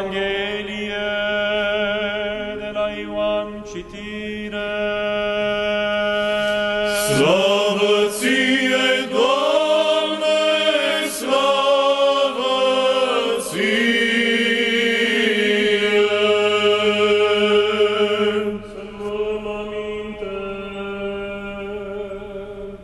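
Men's choir singing Orthodox Byzantine-style chant over a steady held drone note (ison): the responses between the call to attention and the Gospel reading. The voices swell louder in the middle and grow softer near the end.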